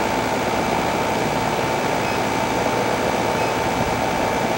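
Air-conditioning condensing unit running steadily, a constant hum with a steady tone in it. The unit is wrapped in a charging jacket that chokes its airflow to raise head pressure in cold weather.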